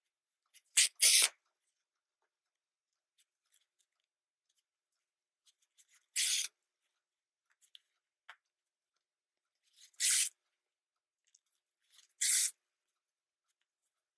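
Yarn being drawn through crocheted stitches as an ear is sewn onto a stuffed crochet piece: four short swishes a few seconds apart, the first and loudest about a second in.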